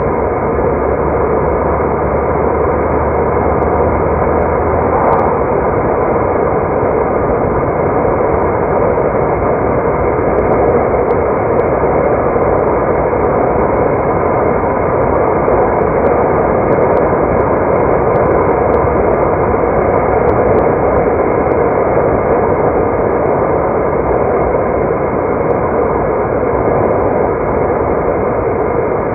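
Car driving along a road: steady tyre and road noise with engine hum.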